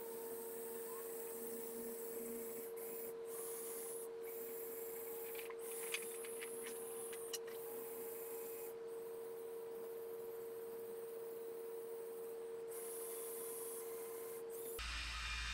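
Faint running of small Lego Technic electric motors and plastic gears: a steady hum with a thin high hiss that starts and stops several times, and a few light clicks about six and seven seconds in.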